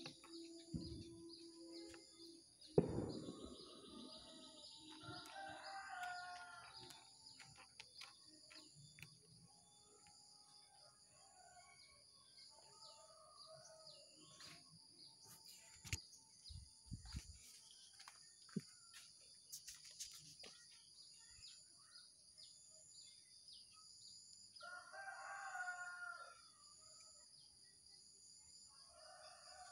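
Faint bird calls, two longer ones about five seconds in and near the end, over a steady high-pitched hum, with a single thump about three seconds in.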